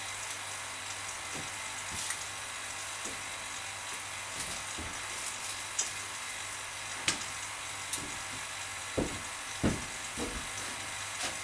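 Vacuum pump running with a steady hiss and low hum as it draws air out of a resin-infusion vacuum bag, with scattered crackles of the plastic bagging film as it is pressed down by hand. A few dull knocks come near the end.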